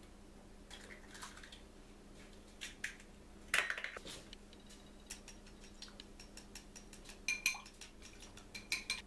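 An egg being beaten in a small glass bowl: a utensil clicking quickly against the glass from about seven seconds in, after a few faint clicks and one sharp knock about halfway through.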